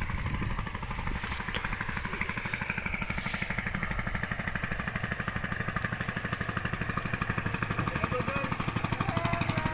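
Small engine running with a rapid, even putter, growing a little louder near the end.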